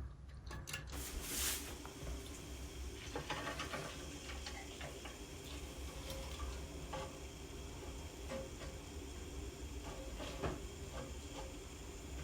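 Faint scattered clicks and small rattles of a toilet's flapper chain and handle lever being handled and unhooked inside the tank, over a low steady hum.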